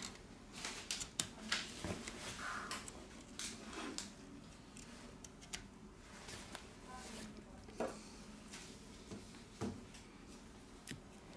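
Light, irregular clicks and taps of small plastic and metal smartphone parts being handled by hand, busiest in the first few seconds and sparser later, as the SIM tray is set aside and the battery is fitted back into the phone's frame.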